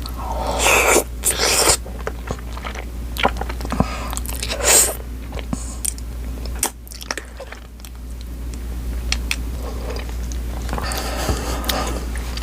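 Close-miked mouth sounds of eating spicy noodles and rice: wet chewing and biting with many sharp clicks, and a few breathy sounds between bites.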